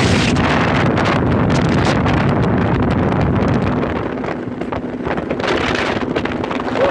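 Wind buffeting the phone's microphone on a moving motorboat, over a steady low drone from the boat's motor.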